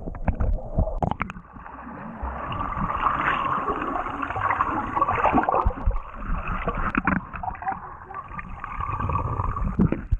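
Muffled underwater gurgling and sloshing from a snorkeler moving in the water, with scattered knocks and thumps, heard with the microphone submerged.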